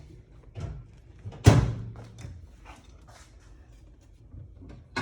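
Kitchen handling knocks: a few light knocks and one loud thump, like a door or cupboard shutting, about a second and a half in.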